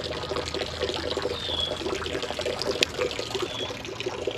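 Creek water running and trickling steadily, with two short high chirps and a single sharp click about halfway through.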